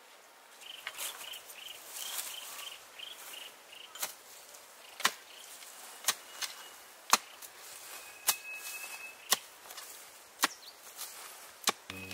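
Hoe or mattock striking into the earth about once a second, digging out winter bamboo shoots. A run of quick high chirps sounds over the first few seconds.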